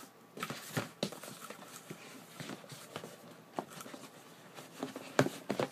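Cardboard boxes being handled: a gift box lifted and slid out of its shipping carton, with scattered light knocks and rustles and the sharpest pair of knocks near the end.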